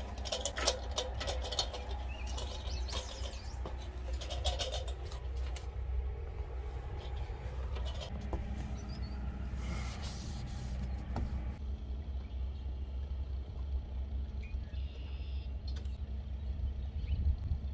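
Aluminium ladder knocking and rattling as it is gripped and moved, a cluster of sharp clanks in the first five seconds and a few single knocks later, over a steady low rumble. Faint bird chirps near the end.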